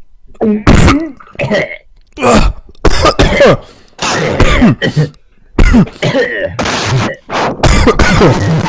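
A person coughing and clearing their throat over and over, in loud, harsh bursts with short gaps between them.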